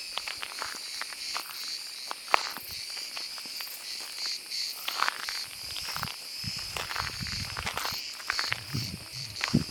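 Cicada singing: a steady, high, slightly pulsing buzz. Scattered clicks and crackles run through it, and a low rumble comes in about two-thirds of the way through.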